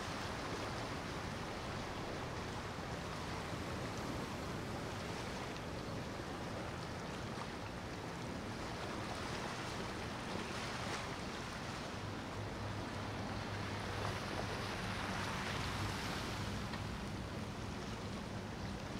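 Motor yachts cruising past under engine power, a low steady engine hum over the wash of choppy river water and wind. The engine hum grows stronger past the middle.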